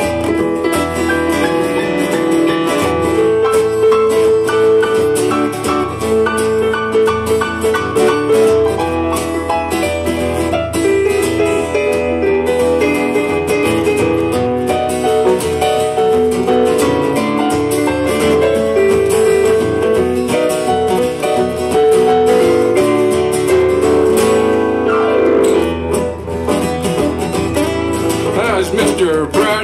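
Live acoustic Americana band playing an instrumental passage with no singing: two acoustic guitars and a keyboard piano, with held melody notes over the strumming.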